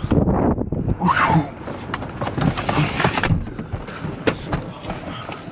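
Wind buffeting the microphone and rustling handling noise as people climb into a car, with scattered clicks and knocks.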